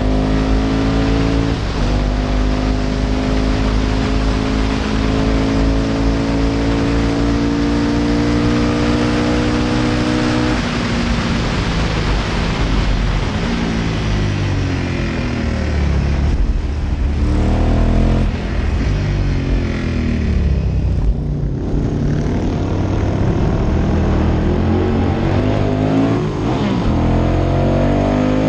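Engine of a Ducati-powered classic racing sidecar at race speed, heard from on board with steady wind rush. The revs are held high on the straight, then drop in several falling steps about halfway through, with two brief lulls, and climb hard again near the end.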